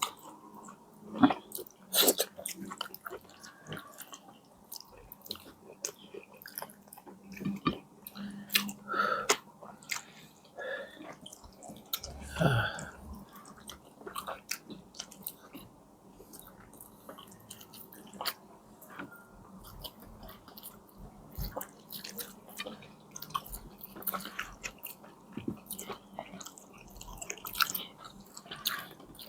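Close-miked chewing and biting of a person eating: irregular wet mouth clicks and smacks.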